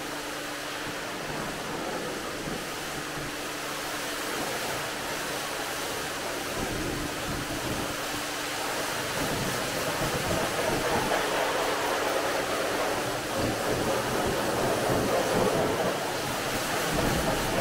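Water spraying onto a car's bodywork: a steady hiss that gets louder about ten seconds in, with a faint steady hum underneath.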